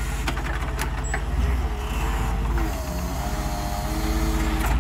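Forklift engine running steadily, with mechanical creaks and clicks from the lift mast and a brief wavering whine about halfway through.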